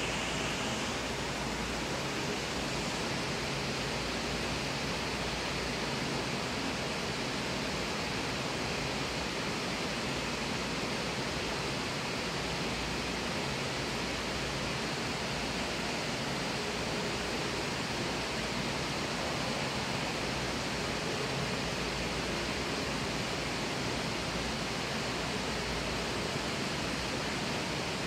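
Steady rush of water from an atrium fountain spilling over rocks into a pool: an even, unchanging hiss with a low rumble beneath.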